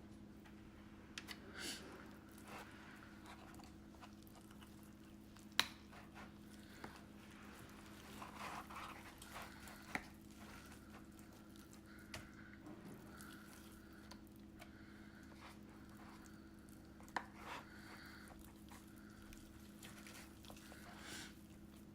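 Faint kitchen handling noise: scattered sharp clicks and taps, with soft rustling between them, over a steady low hum.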